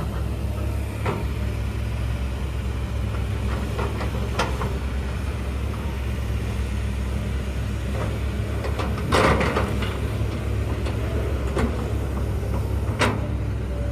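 Hydraulic excavator's diesel engine running steadily, with a few sharp metallic knocks from the working machine; the loudest and longest comes about nine seconds in.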